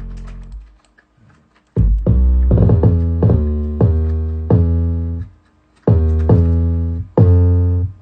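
Hip-hop beat playing with the drums dropped out: keyboard chords over deep bass notes. It falls silent for about a second near the start, then comes back in two phrases of held notes with a brief gap between them.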